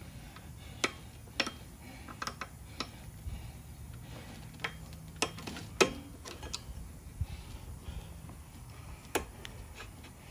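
Small metal clicks and taps, a dozen or so at irregular intervals, as a screwdriver and fingers work a coil spring and wire cable onto the control bracket of a Briggs & Stratton lawnmower engine.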